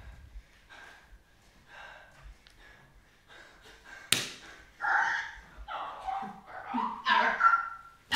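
A person's breathy, strained vocal sounds, short and faint at first and louder in the second half, with a sharp click about four seconds in.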